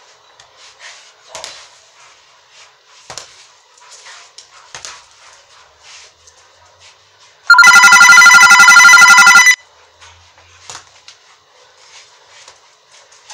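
Faint, irregular taps of boxing gloves striking a small reflex ball on a cord. About seven and a half seconds in, a loud, rapidly trilling electric ring cuts in for about two seconds and stops suddenly.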